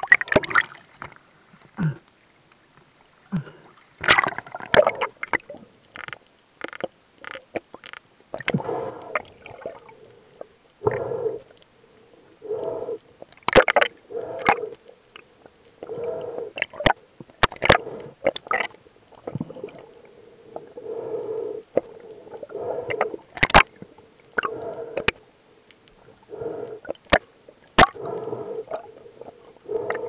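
Water sloshing and gurgling around a spearfisher's underwater camera, in uneven bursts every second or two, with scattered sharp clicks.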